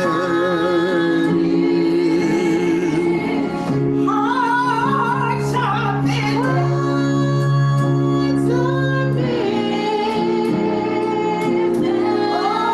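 Gospel worship song: a voice singing long held notes with vibrato over steady instrumental backing.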